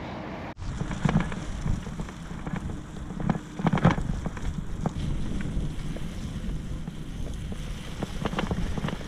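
Wind rushing over the microphone as a bicycle rolls along a rough gravel and dirt track, with scattered knocks and rattles from the bumps.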